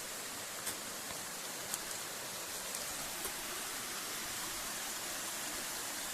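Mountain waterfall rushing as a steady, even hiss, running at low water rather than in full flood. A couple of faint clicks in the first two seconds.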